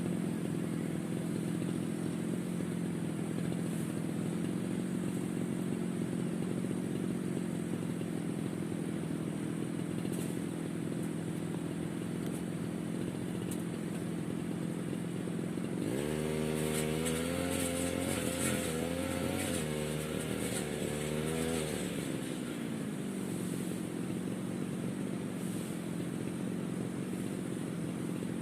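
Brush cutter's small petrol engine idling steadily, then revved up sharply a little past halfway and held high for about six seconds before dropping back to idle.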